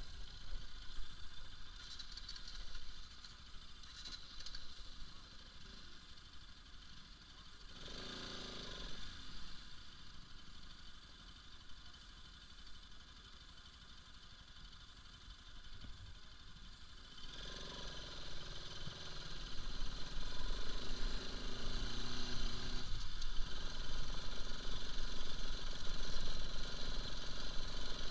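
Bajaj Pulsar RS200's single-cylinder engine running at low speed, with rattling and clatter as the motorcycle moves over a rough, stony track. It is quieter at first and gets much louder about two-thirds of the way through as the bike gets going.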